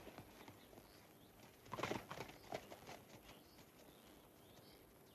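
A few soft hoof and boot knocks about two seconds in, as a rider gets down from his horse, with faint bird chirps.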